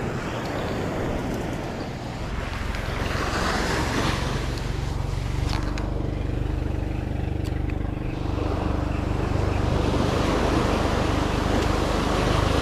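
A motor engine running steadily, coming in about two seconds in and holding an even hum.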